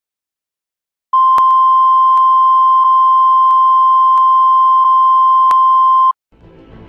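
Steady 1 kHz line-up test tone of a video-tape leader, played with colour bars. It starts about a second in and holds for five seconds, with faint clicks about every two-thirds of a second. Music starts right at the end.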